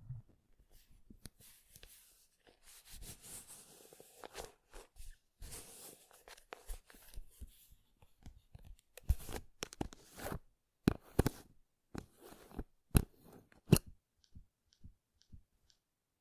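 Close-miked ASMR trigger sounds: soft crinkling and rustling, then a run of sharp clicks and taps, with faint light ticks near the end.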